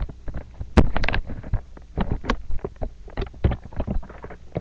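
Handling noise on a webcam microphone as the camera is moved and turned: irregular knocks, bumps and rustling over a low rumble, with the loudest knock about a second in.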